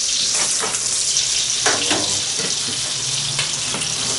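Brill fillet frying in butter in a pan, a steady sizzling hiss, with a few short scrapes and taps of a slotted spatula as the fillet is lifted and turned.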